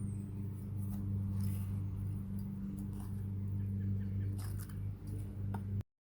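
A steady low hum with a few faint clicks over it, cut off abruptly near the end.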